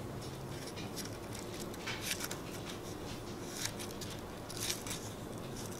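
Faint rustling of a ribbon and cardboard card being handled as a knot is tied, with a few soft brushing sounds scattered through.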